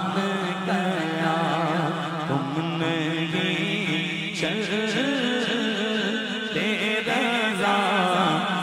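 Male voice singing an Urdu devotional naat without instruments, in a long wavering melismatic line. Beneath it is a steady held low drone from backing voices.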